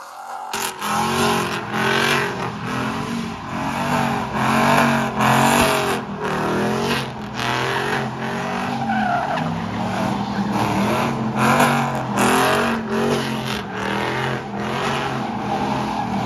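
Pickup trucks spinning donuts: engines revved up and down over and over while the rear tyres squeal and skid on the asphalt.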